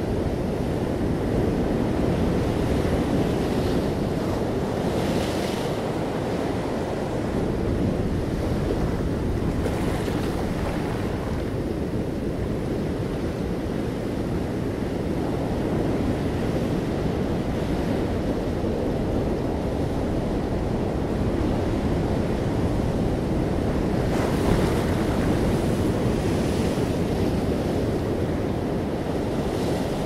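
Ocean surf breaking over rocks and washing up a sandy beach: a steady low rush of waves, with louder hissing surges of foam about five and ten seconds in and again between about twenty-four and twenty-seven seconds.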